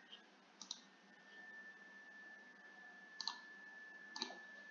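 Three sharp computer-mouse clicks, spaced out, over faint room hiss with a thin steady high whine.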